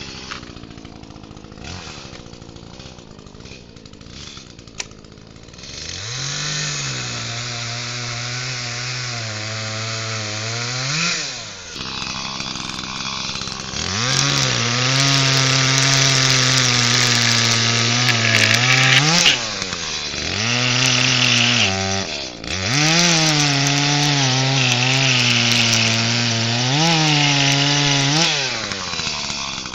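Echo CS-310 two-stroke chainsaw cutting up fallen tree limbs. After a few seconds of quieter handling clicks, it revs to full throttle about six seconds in and runs through four cuts, dropping back to idle briefly between them.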